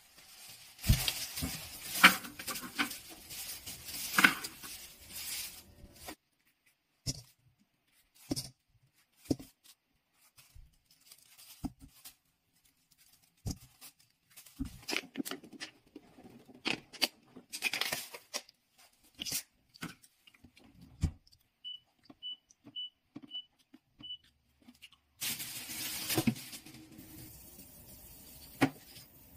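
Thin plastic shopping bag rustling and crinkling as it is carried and handled, followed by scattered kitchen handling clicks and rustles. About three-quarters of the way through come five short high beeps in quick succession, and near the end a cleaver chops once on a cutting board.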